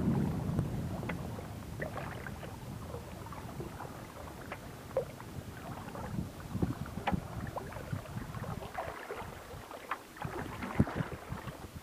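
Water lapping and trickling against a canoe's hull as it moves along, with many small irregular splashes and drips. A low wind rumble fades over the first couple of seconds.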